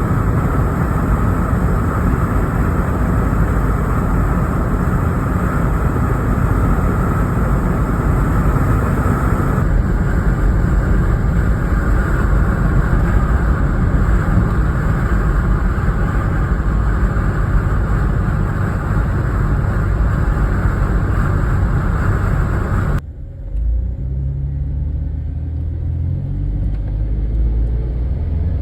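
Car being driven, with loud, steady road and wind rumble. About 23 seconds in it cuts to a quieter, deeper rumble, and an engine note rises near the end as the car accelerates.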